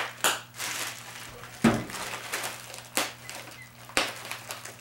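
Hands handling a plastic RC radio controller and its packaging: about five short plastic clicks and knocks, the loudest about a third of the way in.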